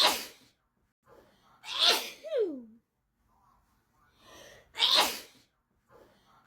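Sneezing fit: three sharp sneezes, at the start, about two seconds in and about five seconds in, each led in by a softer build-up. The second sneeze trails into a short voiced sound falling in pitch.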